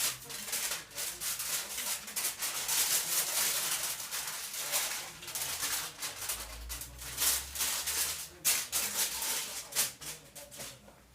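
Scrubbing by hand: quick, irregular rasping strokes of a scrub pad or brush on a surface, cleaning a stove.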